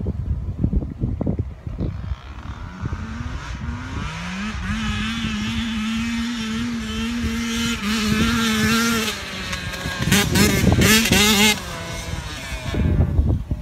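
Dirt bike engine rising in pitch, then holding a steady high rev. It gets louder about ten seconds in, revving up and down, and cuts off suddenly a little over a second later. There are low thumps in the first two seconds.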